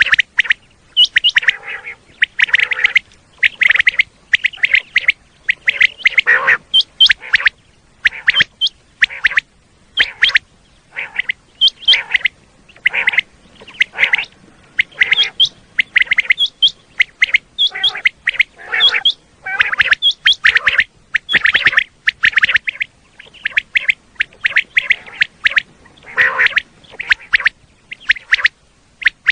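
Common quail calling over and over, short sharp notes in quick groups mixed with harsher raspy calls.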